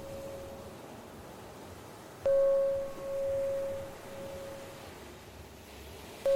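A bell-like chime, like a struck singing bowl, rings out: one stroke about two seconds in and another at the very end, each fading with a slow waver while the previous one dies away. Struck every four seconds, it marks each phase of the 4-4-4-4 box breathing count.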